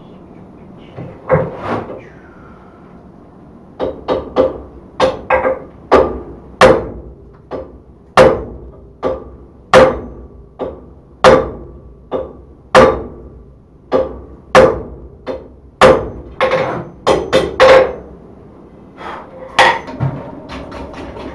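Hand hammer striking hot steel on an anvil: a steady series of blows, a little more than one a second, each followed by a short ring from the anvil, with a pause of about two seconds before the run begins.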